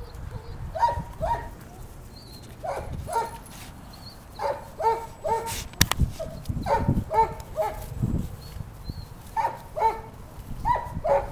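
Young puppies barking in play: short, high barks in quick runs of two to four, again and again. A single sharp click comes about halfway through.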